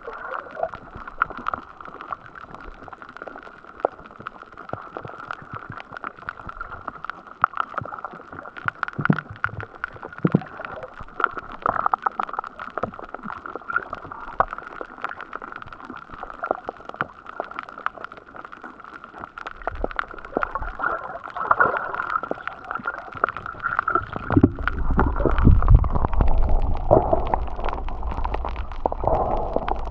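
Underwater ambience picked up by an action camera's built-in microphone on a coral reef: a steady muffled hiss scattered with small clicks and crackles. About two-thirds of the way in, a louder low rumbling of water moving against the camera sets in.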